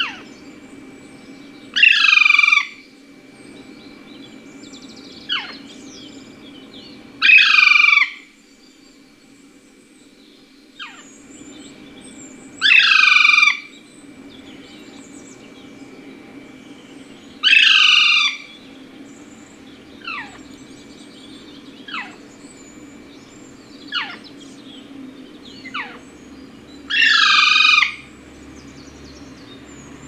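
Parakeet calls: five loud calls about a second long, each a run of downward-sweeping notes, come roughly every five seconds, with short single falling chirps in between. A steady low hum runs underneath.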